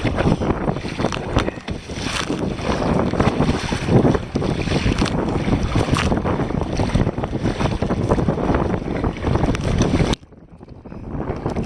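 Wind buffeting the microphone, mixed with splashing water, on a sea kayak paddling across open ocean. The noise drops off abruptly about ten seconds in and swells back over about a second.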